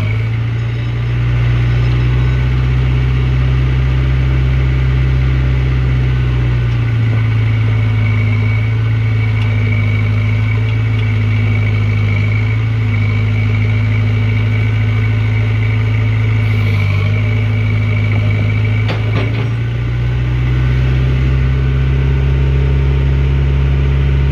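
Backhoe loader's diesel engine running steadily. Its low rumble drops back about seven seconds in and comes up again near twenty seconds, just after a short knock.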